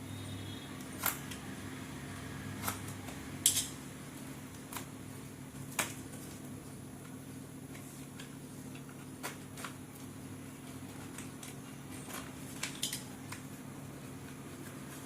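Slate pencils and their packaging being handled: scattered sharp clicks and taps at uneven intervals, the loudest about three and a half seconds in, over a steady low hum.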